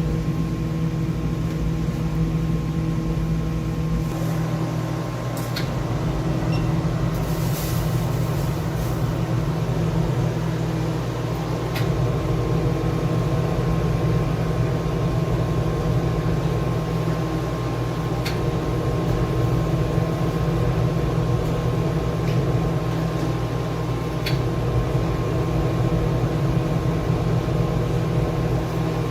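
Steady machine hum with a few light clicks and a brief hiss about seven seconds in.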